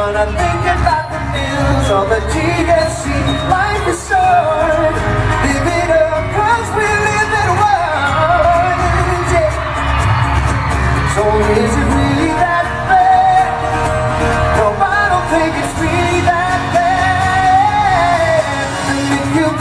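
Live acoustic pop song: a singer's melody over two strummed acoustic guitars, continuous and loud.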